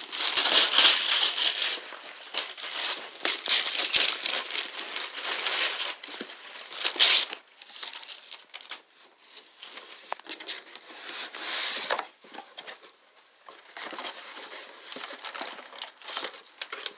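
Paper crumpling and tearing as a present is unwrapped. The rustling comes in loud, dense bursts for the first seven seconds or so, then turns to quieter, scattered rustles.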